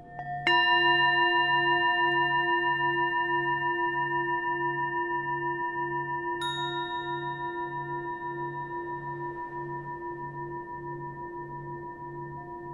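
Ambient background music of bell-like struck tones in the manner of a singing bowl: one struck about half a second in and another around six and a half seconds, each ringing on and slowly fading, over a low hum that pulses a little more than once a second.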